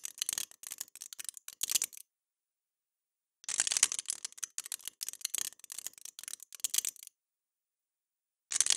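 Computer-synthesized crumpling of a thin sheet: dense crackling clicks from buckling events. It plays as three takes, each made at a different rigidity tolerance. The first ends about two seconds in, the second runs from about three and a half to seven seconds, and the third starts near the end, with silence between them.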